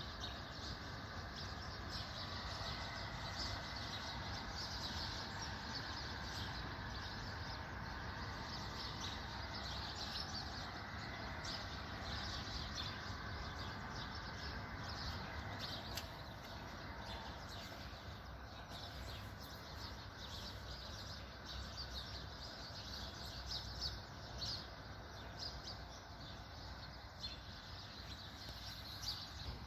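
Many birds chirping and calling at once, unseen in the fog, over a steady low background noise.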